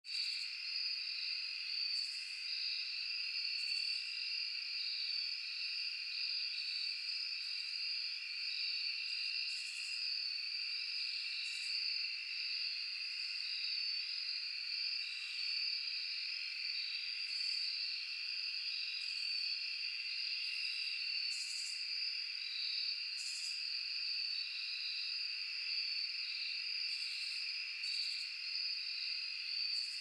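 Night insect chorus: crickets trilling steadily on two high pitches, with short, higher-pitched calls every second or two.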